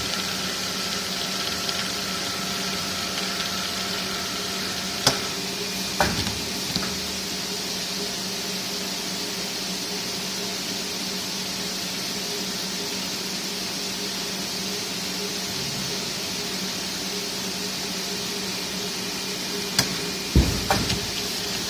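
Vacuum cleaner hose extrusion line running: a steady machine hum with a hiss over it, and a few sharp knocks about five and six seconds in and again near the end.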